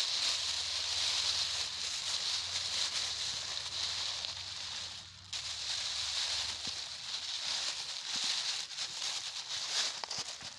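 Plastic litter and a plastic collection bag rustling and crinkling as they are handled. The rustle is steady, breaks off briefly about halfway, then returns as separate crackles.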